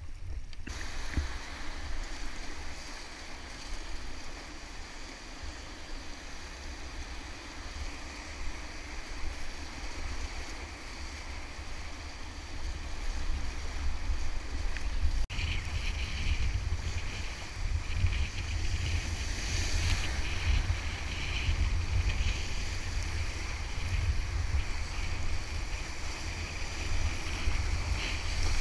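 Rushing whitewater of a river rapid heard from an inflatable kayak running through it, with heavy rumbling buffeting of wind and water on the microphone. The rush grows louder about halfway through as the boat gets into the rapid.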